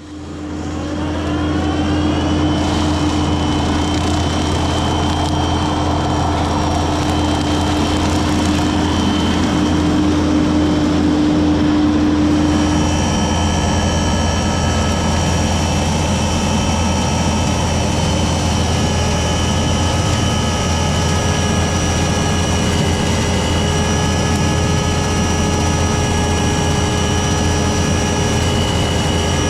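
Skid steer's diesel engine and hydraulic brush cutter running hard. It comes in suddenly and rises in pitch over the first two seconds, then holds steady at high revs with a whine.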